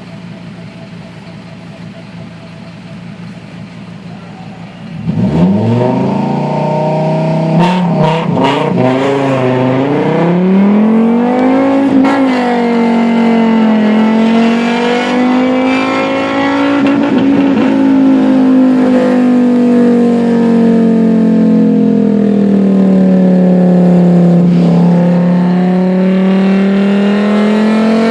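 Fiat Marea five-cylinder engine through a full 2.5-inch exhaust. It runs quietly at first, then gets suddenly louder about five seconds in as the car accelerates. The pitch climbs, and the note then rises and falls with the revs for the rest of the time.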